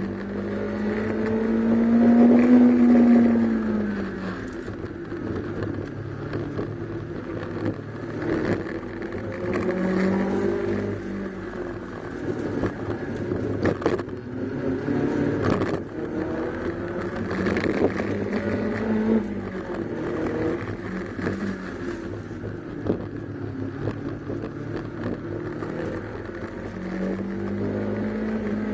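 Honda K20A VTEC four-cylinder engine in a Toyota MR-S, heard from inside the cabin, revving hard. It climbs in pitch and drops back about four times, loudest near the start, with two sharp knocks near the middle.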